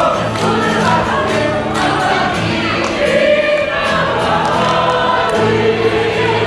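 A choir singing over steady, sustained low accompaniment.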